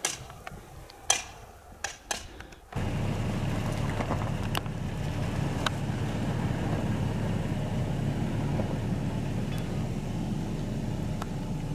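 A few sharp clicks over faint background. Then, about three seconds in, a Toyota Tacoma pickup's engine comes in abruptly, running low and steady as the truck creeps along a snow-covered road, with a few more sharp clicks over it.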